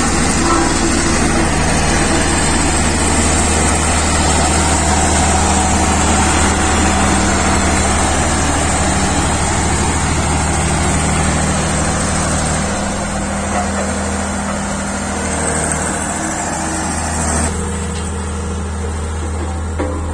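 Single-drum Ingersoll Rand soil compactor's diesel engine running steadily at close range, with a deep steady hum. It grows a little quieter over the last few seconds.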